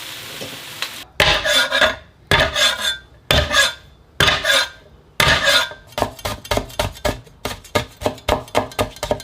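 Kitchen utensil scraping against cookware. There are four long scrapes, then quicker, shorter strokes at about two to three a second.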